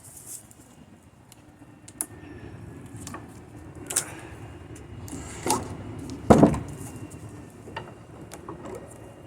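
Heavy hickory slab being turned over on the bench: a handful of wooden knocks and bumps, the loudest about six seconds in.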